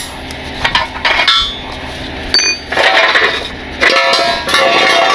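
Steel wheel-lift scoop and lock pin being worked off a tow truck's wheel-lift arm. Metal clanks and clinks, with a bright ringing clink a little over two seconds in, then steel scraping and rattling against steel.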